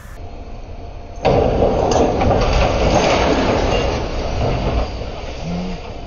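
Concrete pump truck's engine running hard, a loud steady rush that starts suddenly about a second in and eases off near five seconds, as it powers the hydraulics to try to lift the fallen boom.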